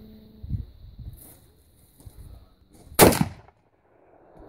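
A single rifle shot about three seconds in, loud and sharp with a short ring-out, preceded by a dull thump about half a second in.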